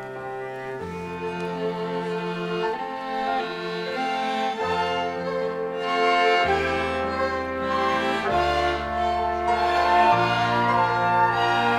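String orchestra of violins and cellos playing a hymn tune in sustained chords, the bass note changing every second or two, swelling gradually louder.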